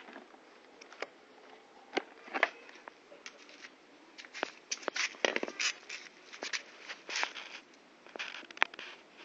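Scattered sharp clicks, taps and short scrapes of hands working a scooter's speedometer cable and its fitting at the front wheel hub, busiest in the middle of the stretch.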